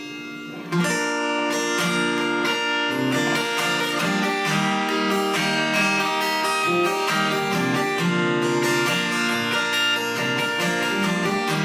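Acoustic guitar playing a song's instrumental intro, beginning about a second in.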